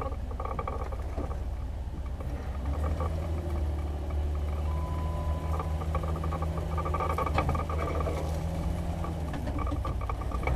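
Off-road vehicle's engine running steadily at low speed while crawling over rough dirt mounds, a low drone with a few faint knocks from the vehicle.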